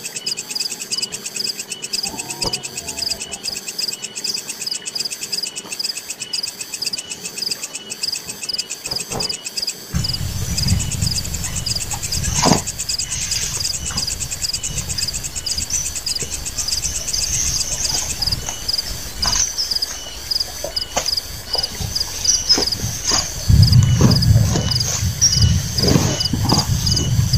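A steady chorus of forest insects with a fast, pulsing high chirp. From about a third of the way in, rustling, flapping and low rumbling as a large fabric camping tarp is unfolded and shaken out, loudest near the end.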